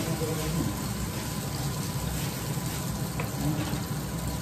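Flour-dusted whole sea bass frying in oil in a large pan: a steady sizzle.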